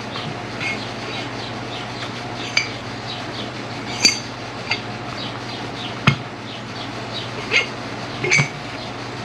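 Metal parts being handled on a workbench: about five sharp clinks and knocks, spread out, over a steady low hum.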